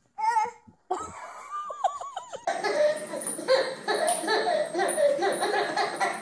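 A baby laughing in long runs of quick giggles, starting about two and a half seconds in, after a few short high-pitched vocal sounds.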